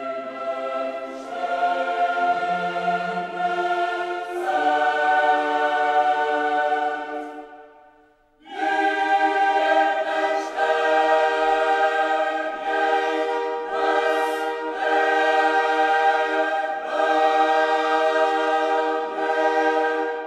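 Background music of a choir singing long held chords. It fades out about eight seconds in and comes back half a second later.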